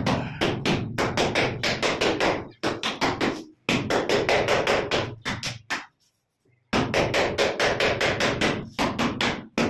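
Rapid tapping on wall tiles, about five sharp blows a second in runs of a few seconds with brief pauses, knocking the tiles to bed them into the mortar.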